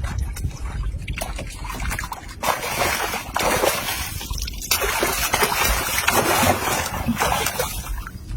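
Water splashing and sloshing in irregular bursts, heaviest from about two and a half seconds in.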